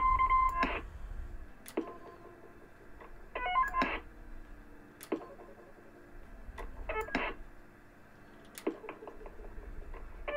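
CB roger beeps from a 150-tone roger beep board: about every three and a half seconds a short electronic bleep made of a quick run of stepped tones, a different pattern each time, with a single sharp click between bleeps.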